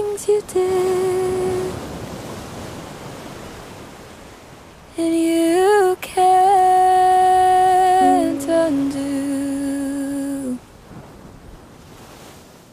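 A voice humming long held notes in a soundtrack song. A short phrase opens, then a hazy tail dies away. A second phrase comes in about five seconds in, with one note bending upward, then dropping to a lower held note. It stops sharply about ten seconds in and the sound fades away.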